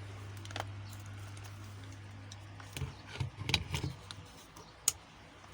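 Sharp clicks and handling knocks as a charger's plug is fitted to a switchboard socket and switched on, over a steady low electrical hum that fades about three seconds in.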